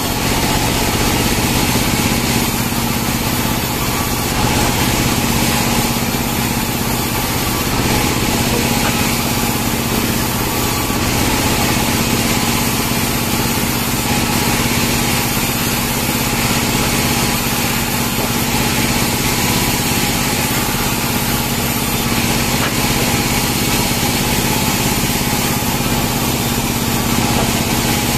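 Small sawmill's engine-driven saw running steadily while cutting pine logs, a continuous mechanical din with a steady hum.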